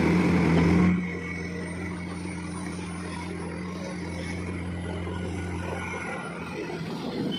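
Komatsu PC210 hydraulic excavator's diesel engine running steadily under working load as the machine swings and digs, louder for about the first second and then settling to an even hum.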